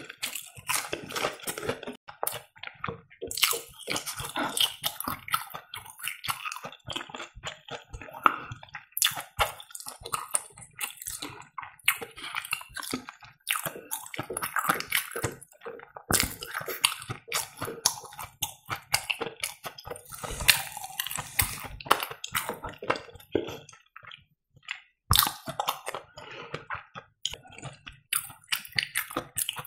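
Close-miked chewing of breaded fried cheese: wet, squishy mouth sounds with many small clicks and smacks, pausing briefly about three-quarters of the way through.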